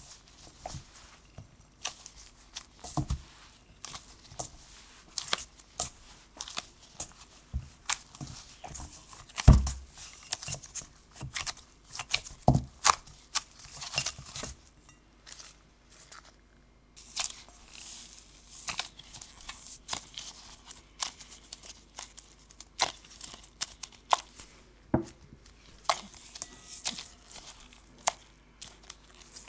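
Gloved hands kneading crumbly butter-and-flour cookie dough in a glass bowl: irregular crackling, squishing and tearing from the dough and gloves, with a few dull thumps as the dough is pressed together, the loudest about a third of the way in. Near the end the dough is pulled apart into pieces.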